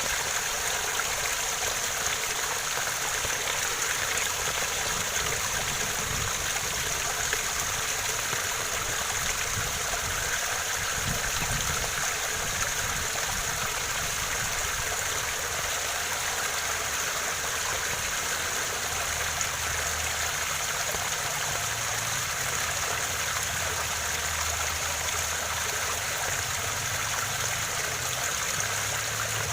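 Waterfall pouring steadily, an even rush of falling water that does not change.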